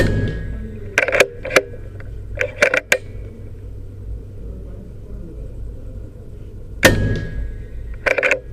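Two shots from a Skout Epoch PCP air rifle, about seven seconds apart, each a sharp crack. After each shot come several quick metallic clicks, the action being cycled to chamber the next pellet.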